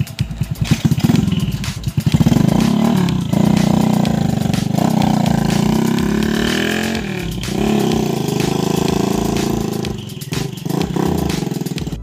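Honda Wave 100 motorcycle, rebuilt as a trail bike, pulling away under throttle. Its single-cylinder four-stroke engine revs up, drops in pitch at gear changes about three and seven seconds in, and climbs again each time, then eases off near the end.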